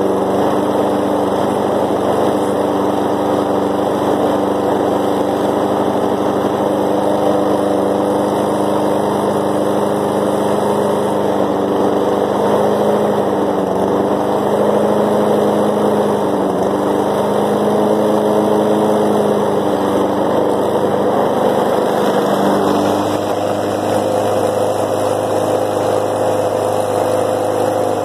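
A 2007 Snapper self-propelled lawn mower's small petrol engine running steadily, left going to burn the remaining gas out of the carburettor before winter storage. Its pitch wavers a little, and about 22 seconds in the note drops lower.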